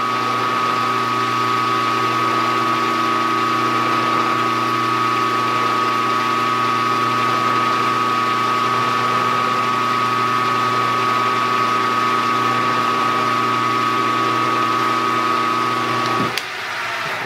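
Geared-head milling machine spindle running in gear with a steady whine while center drilling; it shuts off about 16 seconds in, followed by a click.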